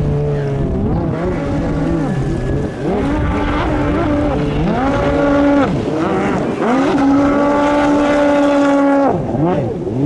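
Race jet ski's 1500 cc four-stroke engine revving hard, its pitch rising and falling again and again as the throttle is worked through turns, held high for a couple of seconds twice before dropping near the end.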